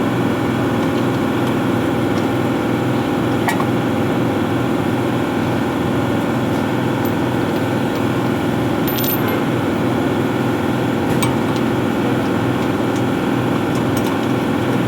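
Steady mechanical hum of a running machine, with a few faint light clicks.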